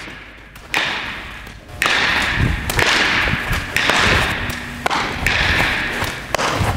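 Ground balls being fielded on artificial turf: a run of five sharp swishing hisses, each starting suddenly and fading over about a second, mixed with dull thumps of feet and ball.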